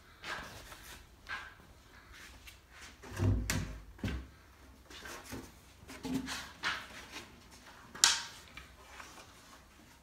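Pine boards of a beehive roof knocking and bumping as they are handled and lifted: scattered wooden knocks and thumps, a heavy thump about three and a half seconds in and a sharp knock about eight seconds in.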